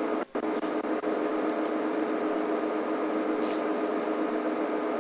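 Steady mechanical hum over a constant hiss, like an engine idling, with a brief dropout just after the start.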